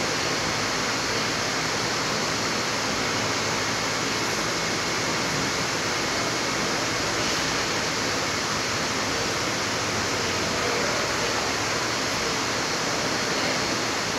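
Steady rushing noise with a faint high whine running through it, with no distinct knocks or events.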